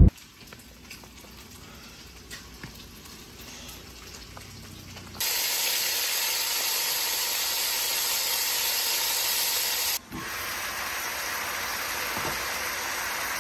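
Whole fish cooking in sauce in a pot on the stove, sizzling as a steady hiss. The hiss starts abruptly about five seconds in, cuts out for a moment near ten seconds and resumes. Before it there are only faint low noise and a few small ticks.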